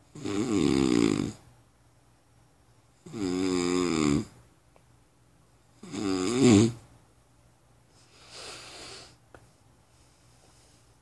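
A person snoring: three loud, pitched snores about three seconds apart, then a fainter fourth one near the end.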